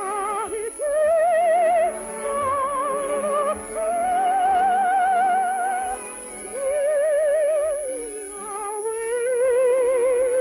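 Operetta singing in a high voice over an orchestra: a phrase of long held notes, each lasting a second or two, with wide, even vibrato.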